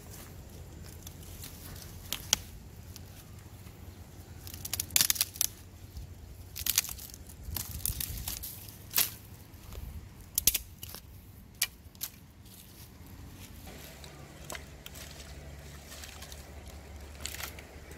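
Dry wooden sticks cracking and snapping as they are broken and pulled apart by hand, in an irregular string of sharp cracks with rustling between them. About two-thirds of the way through, a steady low hum comes in.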